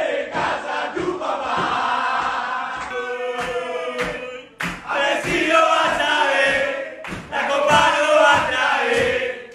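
A group of footballers chanting and singing loudly together in celebration, over a steady beat of thumps. The chant drops out briefly just after four seconds in, then starts up again.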